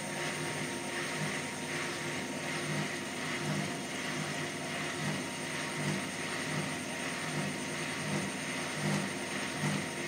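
Hotpoint front-loading washing machine on a rinse, its motor turning the drum slowly with water inside: a steady hum with a low swish repeating about every three quarters of a second.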